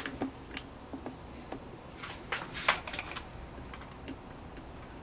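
Light scattered clicks and taps of handling noise, from hands holding a plate against a wall, with a quick cluster of them about halfway through.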